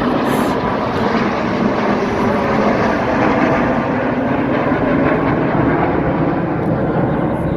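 Aircraft flying past at an airshow, a loud steady engine noise that holds without a break.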